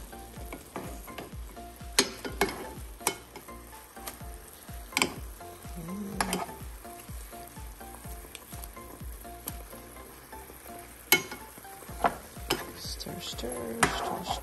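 Pork adobo boiling and sizzling in its soy sauce and vinegar in a frying pan, stirred with a metal utensil that clinks against the pan now and then.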